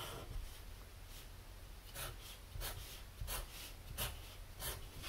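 Black marker drawing on paper in short strokes, a quiet scratch about every two-thirds of a second from about two seconds in.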